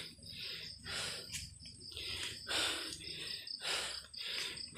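Crickets chirring steadily in a high, thin tone, under rough swishing noises that come about twice a second.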